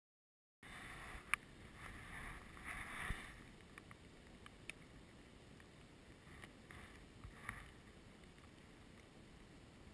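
Light rain falling on a small pond and its grassy bank: a faint, even hiss with scattered sharp ticks, starting abruptly after half a second of dead silence.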